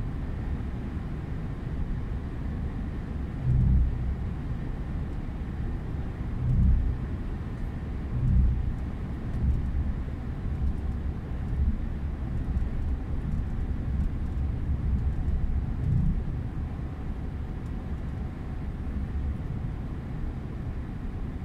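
Steady low in-cab rumble of a Scania S 500 truck driving at highway speed: engine and road noise. A few brief louder low swells rise out of it in the first two-thirds.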